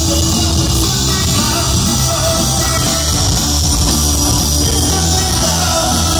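Live band playing loudly through a PA system: electric guitar, bass guitar and drums.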